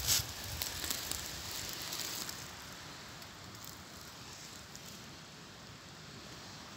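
Dry oak leaves crunching and rustling underfoot, with a sharp crunch at the start and lighter rustles for about two seconds. After that only a steady faint hiss remains.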